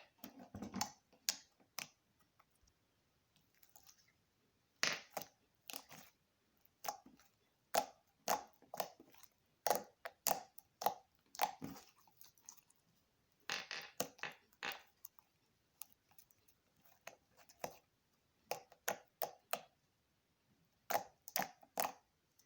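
Slime being squeezed and poked by hand, making irregular wet clicks and pops that come in quick clusters separated by short pauses.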